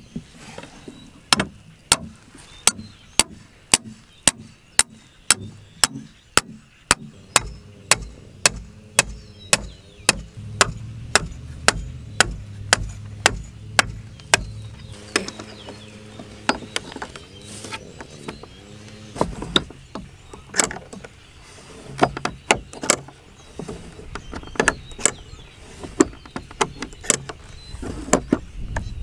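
Hammer blows on a steel drive rod, driving a cabled earth anchor into the ground: a steady run of sharp strikes at about one and a half a second, which thins out about halfway into scattered, irregular strikes.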